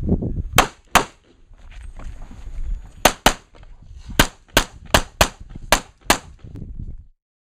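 Handgun shots fired in a USPSA stage: about ten sharp reports, mostly in quick pairs with short gaps between pairs. The sound cuts off suddenly near the end.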